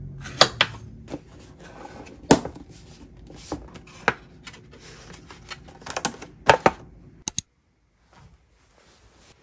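A kitchen knife cutting bananas on a wooden cutting board, along with plastic food containers being handled. It is a series of irregular sharp knocks and clacks that stops abruptly about seven seconds in.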